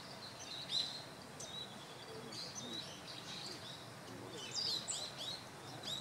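Small birds calling: short, high chirps and sweeping notes scattered through, with a quick run of them about four and a half seconds in.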